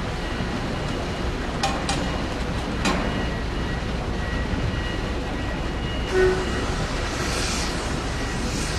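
Steady rumble of a diesel tour coach creeping up a ferry's steel stern ramp onto the vehicle deck, over a constant machinery hum. A few metallic clanks come about two and three seconds in, and a short low beep about six seconds in.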